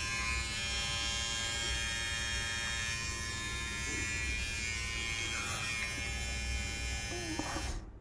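Small micro-USB-charged electric hair trimmer running unloaded with a steady, even buzz, then switched off near the end.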